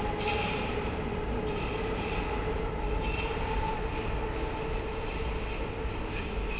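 Paris Métro line 12 MF67 train running, a steady rumble of wheels on rails with a steady hum over it.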